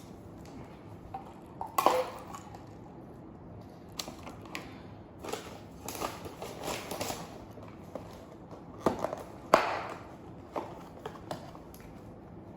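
Irregular crinkling and clicking handling noises, with sharp cracks about two seconds in and near ten seconds.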